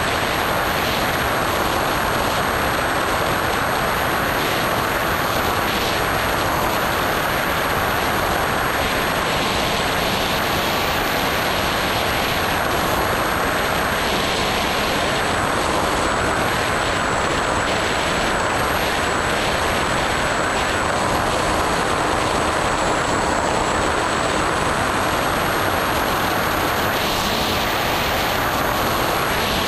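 Onboard sound of a Skyhunter RC plane in flight: steady wind rush over the microphone with the high whine of its electric motor and pusher propeller, the pitch drifting slightly.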